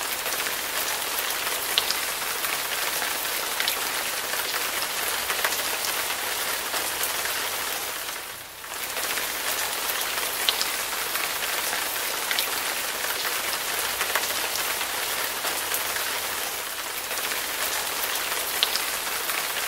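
Steady rain: a dense hiss of falling rain with scattered sharp drop ticks. It briefly dips about eight seconds in.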